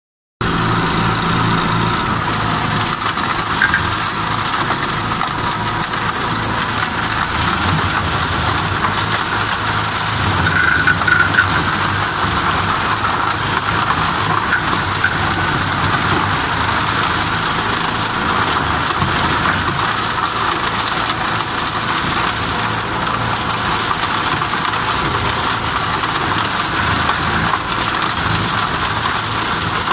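Tractor engine running steadily under load while a Kellfri WKL180 flail mower head chops through willow brush and tall grass, a dense steady cutting noise over the engine.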